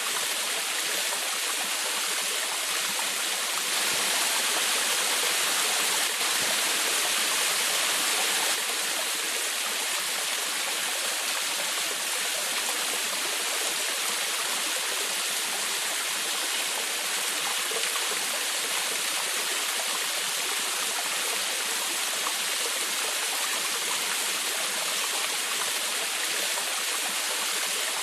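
A small forest waterfall splashing and rushing without a break: a steady, bright hiss of falling water with little low rumble. It is a little louder from about four to eight seconds in.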